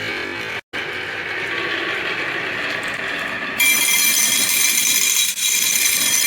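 Marbles rolling and clattering along a toy marble run, a fast clicking, ratchet-like rattle. It drops out briefly under a second in and becomes louder and brighter a little past halfway.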